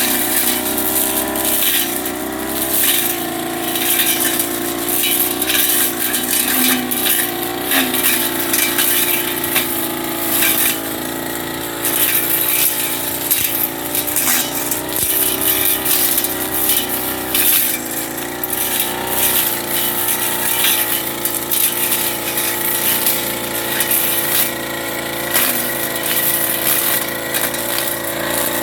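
Backpack brush cutter's small 30cc engine running at high speed, its pitch wavering slightly as the spinning blade cuts through weeds, with frequent sharp ticks and crackles from the blade hitting stems and debris.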